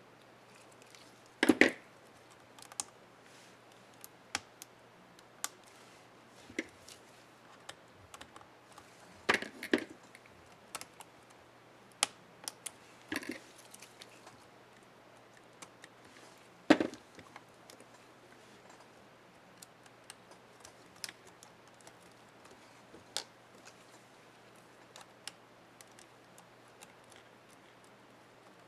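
Scattered small plastic clicks and snaps from an HP Stream 11-d010wm laptop keyboard's space bar keycap and its clips being worked on and fitted, with a few louder snaps among them.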